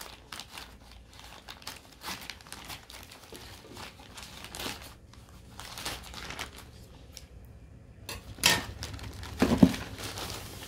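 Scissors snipping through a plastic courier mailer bag, the plastic crinkling irregularly as it is cut and handled. Near the end comes louder crinkling and a thud as the bagged package is lifted.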